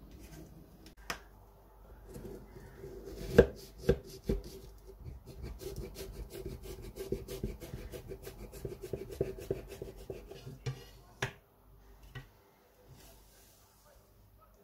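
Kitchen knife sawing through the baked pastry crust of an apple pie on a wooden chopping board. A few sharp knocks come about three to four seconds in, then a run of quick crunching strokes for about five seconds, and one last knock about eleven seconds in.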